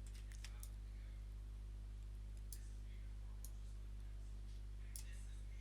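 Faint computer mouse clicks, a handful scattered irregularly, over a steady low electrical hum.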